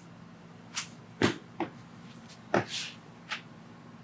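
Chiropractic adjustment: a series of short, sharp cracks and knocks, about six in four seconds. The two loudest come about a second and a quarter and two and a half seconds in, with a brief rustle after the second.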